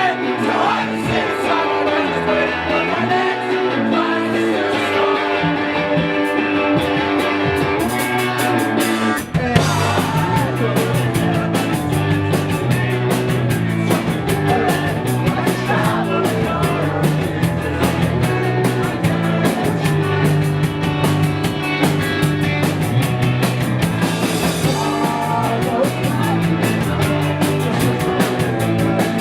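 Rock band playing, with guitar and singing; drums and bass come in about nine seconds in, and the full band carries on.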